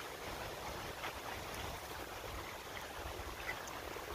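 Shallow creek water flowing in a steady wash, with wind rumbling unevenly on the microphone.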